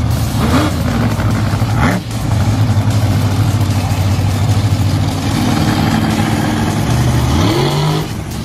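Monster truck engines running loud, with the throttle opened into rising revs about half a second in, again near two seconds and once more near the end.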